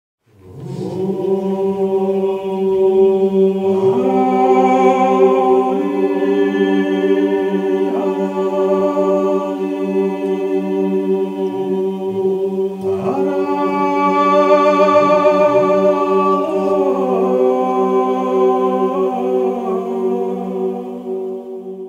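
An a cappella choir singing in several parts over a steady held bass drone, the upper voices moving to new chords every few seconds. It fades in at the start and stops abruptly at the end.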